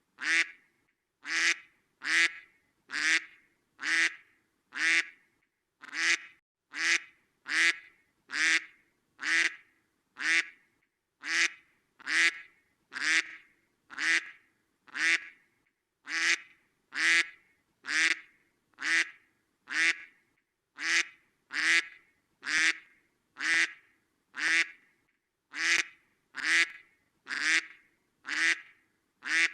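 A duck quacking: short, same-sounding quacks about once a second at a steady pace, with an occasional slightly longer pause.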